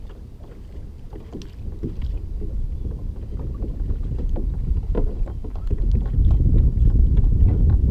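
Wind rumbling on the microphone over a kayak on open water, louder about six seconds in, with a few faint ticks as a lure is worked free of a small fish by hand.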